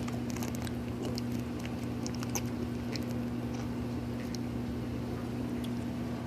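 Faint scattered small ticks and crackles over a steady low electrical-sounding hum.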